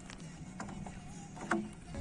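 Faint music with a few light knocks, the sharpest about a second and a half in.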